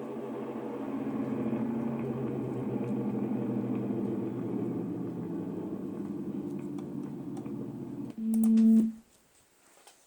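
Purported emergency alert siren recording for Burundi: a dense, steady droning rumble with several held low tones. About eight seconds in it gives way to a short, louder single tone that cuts off abruptly. It sounds like war footage.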